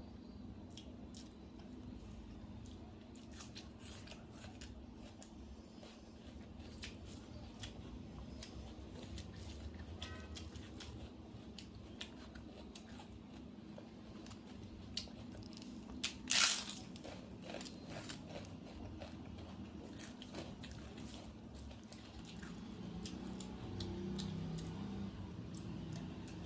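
Close-up eating sounds: chewing and wet squishing of rice and curry by hand and mouth, with many small clicks and one loud crunch about sixteen seconds in, over a steady low hum.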